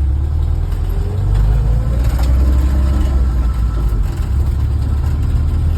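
1974 BMW 2002 Touring's four-cylinder engine and drivetrain running with a steady low rumble; the owner suspects an abnormal noise coming from the rear axle.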